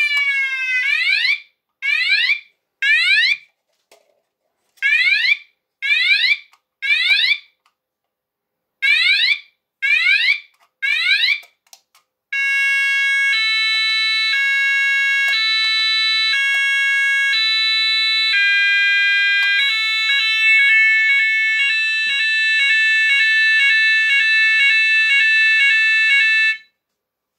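Sonos DC multi-tone fire alarm sounder cycling through its selectable tones as its DIP switches are changed. It gives a falling sweep, then a series of short rising whoops with irregular gaps, then a tone stepping between pitches about once a second, and about two-thirds through a faster warble. It cuts off shortly before the end.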